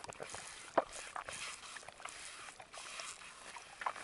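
Faint sips and small slurps of ice-cold spring water drawn through a hollow dry-grass straw from an open patch of stream, with a few small clicks.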